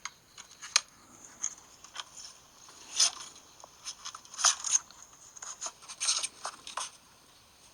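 An iPhone's speaker giving off an unexplained glitch noise: an irregular clatter of clicks, crackles and short rasping bursts, the 'gasha gasha' that would not stop. It is a malfunction.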